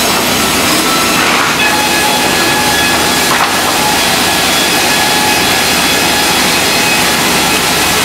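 Serra horizontal bandsaw mills and resaws running together in a sawmill: a loud, steady machinery noise with several faint, steady whining tones through it.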